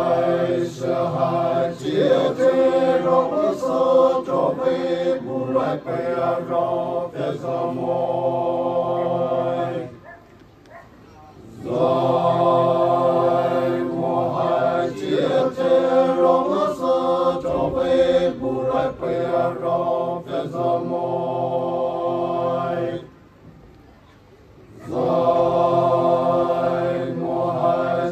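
A group of voices chanting together in long sustained phrases, breaking off about ten seconds in and again near the end for a pause of a second or two before starting again.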